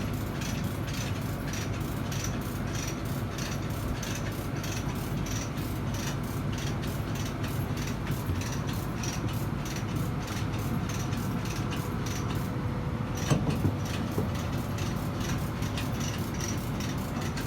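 Hoist lifting a marine gearbox: steady mechanical clicking several times a second over a low hum, with a single louder knock about thirteen seconds in.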